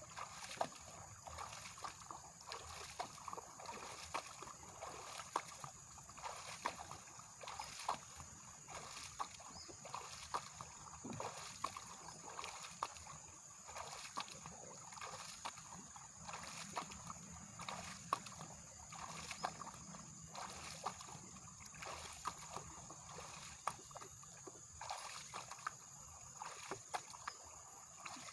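River water sloshing and splashing against a raft as it crosses a fast current, with small splashes and knocks about once a second.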